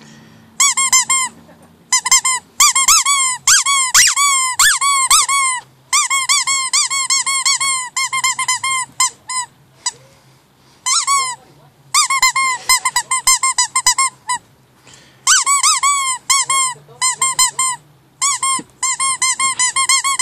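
Squeaky rubber ring dog toy squeezed over and over, giving quick runs of high, honking squeaks with short pauses between the runs.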